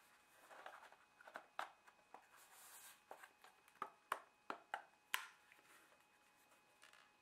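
Plastic clicks and taps with some soft rustling as the body shell of a Hornby Class 153 OO gauge model railcar is fitted back onto its chassis and clipped together. About seven sharp clicks come between roughly one and a half and five seconds in.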